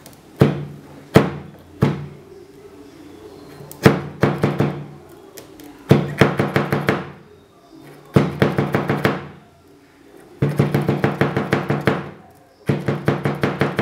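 A metal rod and glass test tube knocking against a hard flat surface as the rod is worked down into the tube's epoxy putty: three single knocks, then repeated bursts of rapid tapping, about eight taps a second, each burst lasting a second or so. Soft music plays underneath.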